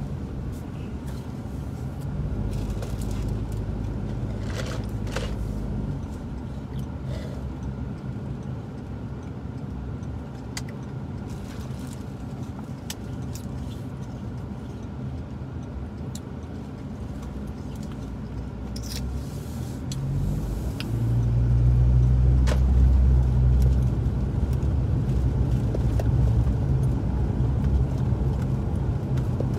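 Car engine and road noise heard from inside the cabin while driving: a steady low drone that grows louder about two-thirds of the way through, with a few light clicks.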